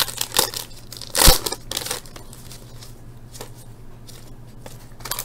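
A 2010 Bowman Chrome foil card-pack wrapper being torn open and crinkled by gloved hands, with a sharp crackle about a second in and a few smaller crackles, then quieter handling of the cards over a faint steady hum.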